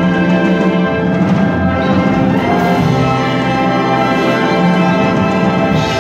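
A concert wind band playing: brass and woodwinds sounding held chords together, which change about two and a half seconds in.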